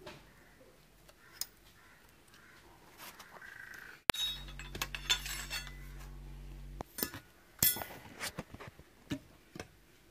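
Metal tools and steel fork parts clinking and knocking together as they are handled, with a few sharp clinks in the second half. A low steady hum comes in abruptly about four seconds in and stops a few seconds later.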